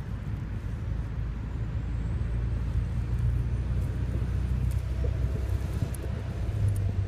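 Steady low outdoor rumble with no clear single source, plus a few faint clicks.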